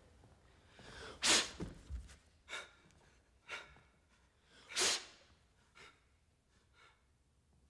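A man's sharp, forceful bursts of breath, like puffs or sneeze-like huffs. The two loudest come about three and a half seconds apart, with softer ones between them and one after.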